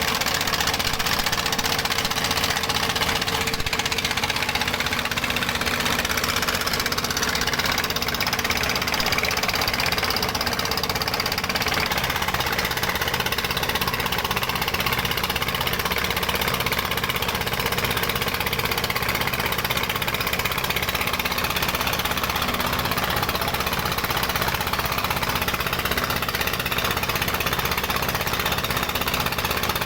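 Dongfeng single-cylinder diesel engine of a gold-mining rig running steadily at working speed, a loud, even mechanical clatter.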